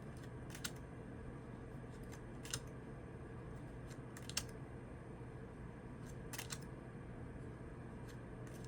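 Faint, brief clicks of tarot cards being handled one at a time, about every two seconds, over a low steady hum.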